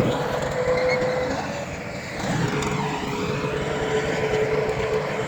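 Heavy earthmoving machinery running on its diesel engine, with a steady whine that drops out for about a second near the middle.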